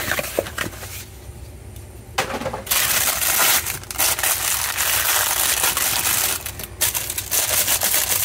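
A printed paper accessory wrapper from a toy package being crumpled and worked open in the hands: a dense, continuous crinkling that starts about two and a half seconds in, after a few light clicks from the cardboard tray being handled.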